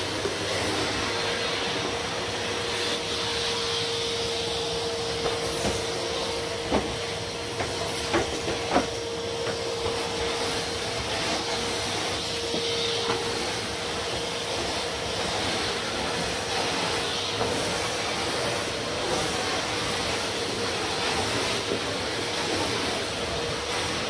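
Numatic Hetty cylinder vacuum cleaner running with a steady whine, its floor nozzle pushed back and forth over carpet. A few sharp clicks come between about seven and nine seconds in.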